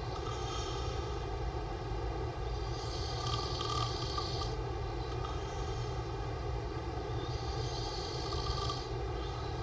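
A man snoring with his mouth open: three hissy breaths about four to five seconds apart, over a steady low hum.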